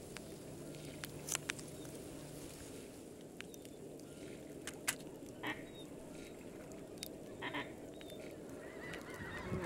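Geese honking faintly a few short times over a steady low rumble.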